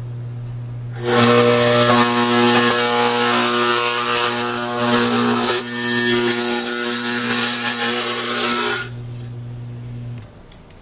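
A degausser's 60 Hz electromagnet hums steadily. From about a second in, steel digital calipers pressed onto its platen buzz loudly against it for about eight seconds while they are passed across to demagnetize them. The hum stops shortly before the end.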